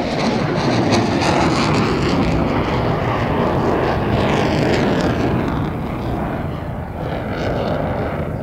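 Eurofighter Typhoon fighter jet climbing on full afterburner, its twin Eurojet EJ200 turbofans making a loud, steady roar that eases off a little near the end.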